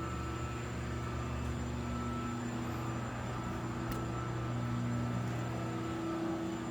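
Steady low electrical hum, a mains-frequency buzz with overtones, from running shop machinery. There is a faint click about four seconds in.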